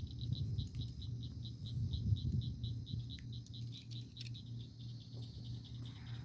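An insect chirping in a steady, even high-pitched pulse, about six or seven chirps a second. Close by, gloved hands rustle and bump while handling a fish, loudest about two seconds in, with a few sharp clicks about four seconds in.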